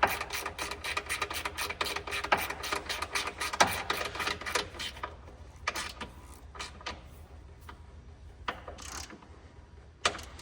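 Ratchet wrench clicking rapidly as a fastener is turned, then slowing to a few scattered clicks after about five seconds, with a single knock near the end.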